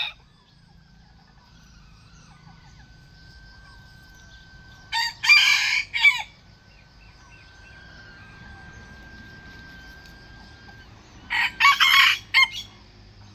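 Bantam roosters crowing twice, about six seconds apart. Each crow is short, about a second long, and comes in a few quick segments.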